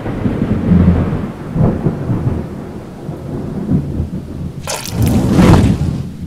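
Thunder-like rumbling sound effects that swell and fade several times, with a sharp crack about three-quarters of the way through and a last big swell of rumble after it.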